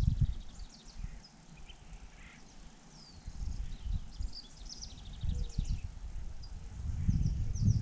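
Small songbirds chirping and trilling in short high phrases, over a low rumble of wind gusting on the microphone that is strongest at the start and again near the end.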